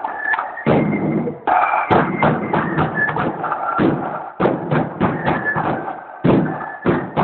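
Marching-band side drums and a bass drum played together in a steady beat of dense strikes.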